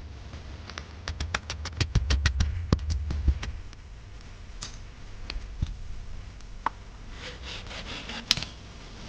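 A quick run of sharp taps or knocks, about seven a second, lasting a couple of seconds. A few scattered single taps and a brief scraping follow.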